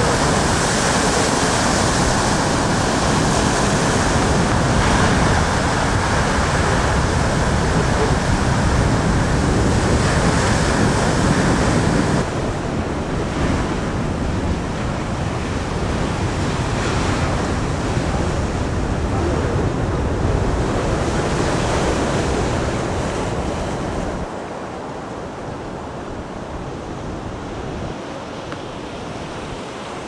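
Black Sea storm waves surging and crashing against the harbour, a continuous heavy roar with wind buffeting the microphone. The roar steps down suddenly twice, about twelve seconds in and again near twenty-four seconds.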